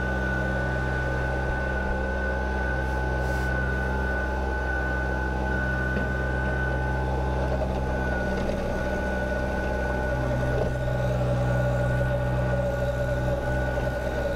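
Kubota BX subcompact tractor's three-cylinder diesel engine running steadily under load while driving a rear PTO chain-drive rotary tiller through loose soil, with a steady high whine alongside. It grows a little louder about ten seconds in.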